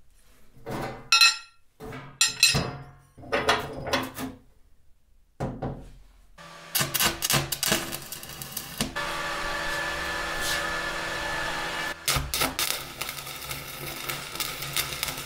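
Steel angle iron and rebar knocking and clattering on a steel plate as they are set in place, then a stick welder's arc crackling steadily as a bead is run on the rebar joint, with a brief stop about twelve seconds in.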